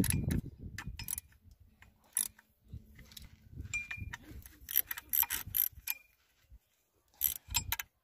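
Hand ratchet wrench clicking in several short bursts, with pauses between, as a socket turns bolts on a water pump housing, with light metallic ringing from the tool.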